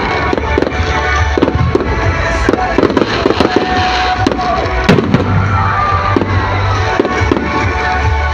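Fireworks bursting in a rapid string of bangs and crackles, the loudest bang about five seconds in, over music playing.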